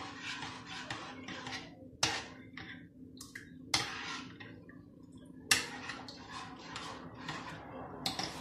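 Metal spoon stirring a thick chocolate milk and cornstarch mixture in a pot on the cooktop: repeated scraping strokes against the pot, with a few sharper knocks on its side. The mixture is stirred constantly as it heats so it does not stick. A steady low hum runs underneath.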